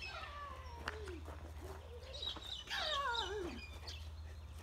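Birds calling: several wavering whistled calls that slide down in pitch, the loudest about three seconds in.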